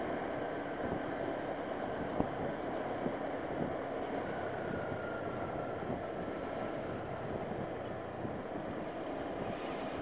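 Steady wind rush on a helmet-mounted microphone over the noise of a moving motorcycle.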